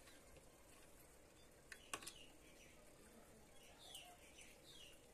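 Near-quiet room with two sharp clicks about two seconds in, then a few short falling bird chirps in the background near the end.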